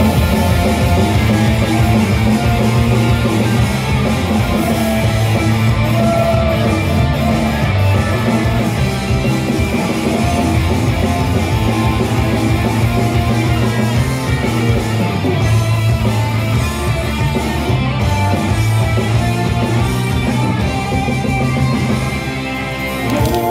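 Loud pop-rock idol song with electric guitars, played live through a PA, with singing in places. The level dips briefly near the end.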